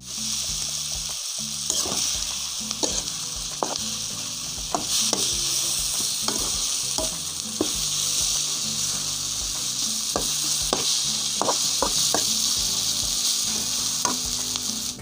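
Lemon pickle in chilli masala sizzling in a metal pan as it is heated through, with a metal spatula stirring it and scraping and knocking against the pan about once a second.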